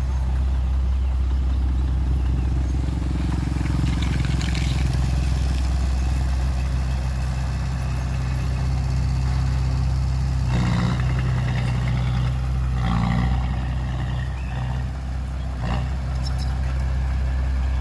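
Heavy diesel engine of earthmoving machinery running steadily with a deep, even drone. A few short noises break in about two-thirds of the way through.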